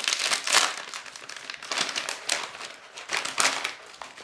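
Plastic crisp packet of Tyrrells crisps crinkling and rustling as it is pulled open by hand, in irregular bursts, loudest in the first second.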